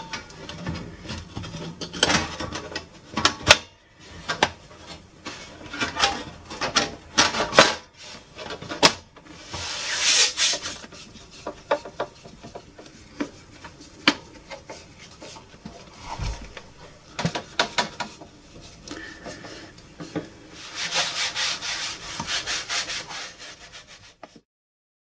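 Sheet-metal lid of a Pioneer SA-620 stereo amplifier being fitted and screwed down: irregular clicks, knocks and scrapes of the cover and screwdriver. Near the end comes a stretch of rubbing as the case is wiped with tissue, and the sound cuts off just before the end.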